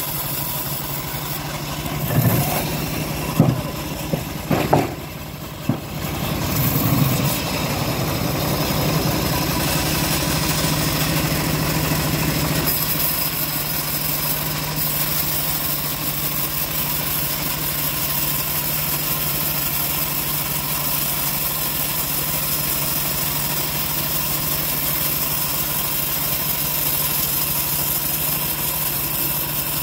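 Homemade bandsaw sawmill running steadily while its band blade rips a log lengthwise into slabs. A few loud knocks and thumps come in the first several seconds.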